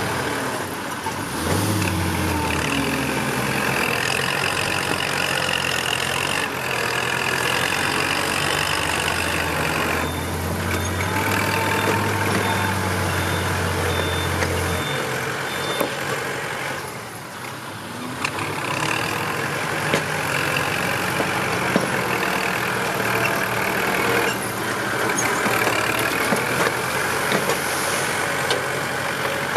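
Dump truck engine running steadily, with a high reversing beeper sounding about once a second for several seconds around the middle.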